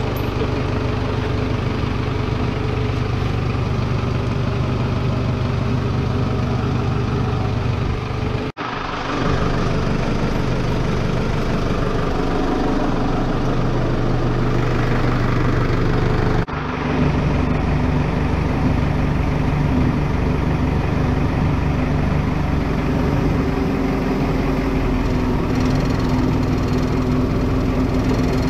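Engine of the lifting machine, a forklift-type loader, running steadily at idle. The hum changes in pitch twice, with a short dropout about eight and a half seconds in and again about sixteen and a half seconds in.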